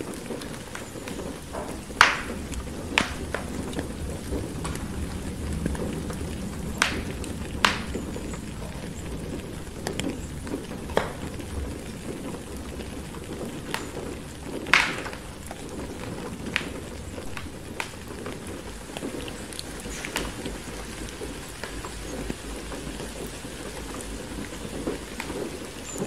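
Steady rain hiss with a low rumble underneath, and a fireplace crackling in sharp, irregular pops, the loudest about two seconds in and midway through.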